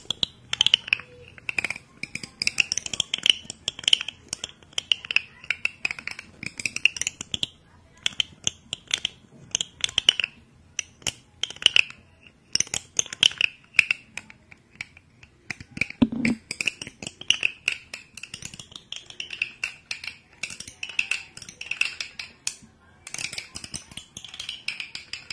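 Close-miked ASMR mouth sounds: rapid, irregular clicks and smacks over breathy, wordless whispering, with a few short pauses.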